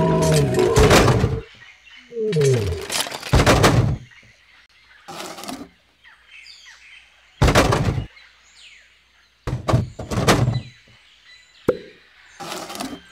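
A run of cartoon sound effects: separate thunks and clattering knocks as toys drop into a storage bin, with a falling glide about two seconds in and faint bird chirps between the knocks.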